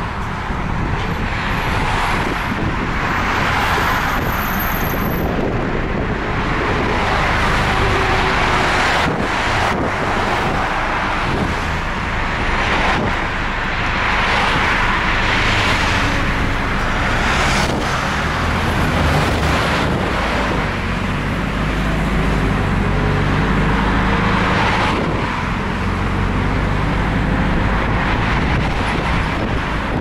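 City bus driving, heard from inside the cabin: a steady engine rumble and road noise, with the engine note rising and falling now and then.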